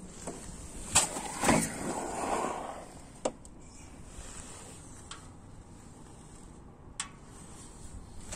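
Handling sounds of a plastic torpedo spirit level on a PVC pipe: a sharp knock about a second in, a brief scrape just after it, then single light clicks twice later on.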